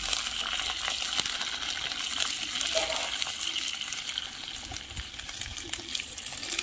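Cauliflower frying in a metal kadhai, sizzling steadily, while a metal slotted spoon stirs it and clinks and scrapes against the pan.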